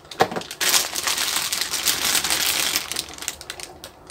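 Clear plastic bag crinkling and rustling as it is pulled out of a cardboard box and handled.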